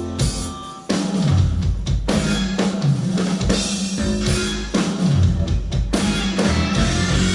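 Rock band playing live with the drum kit to the fore, kick, snare and rimshot hits over bass and guitar. A held chord fades out, and about a second in the full band crashes back in, punctuated by hard stabs.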